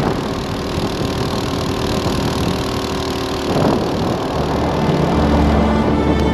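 Go-kart engine running at steady high revs under the onboard camera as the kart holds speed along a straight.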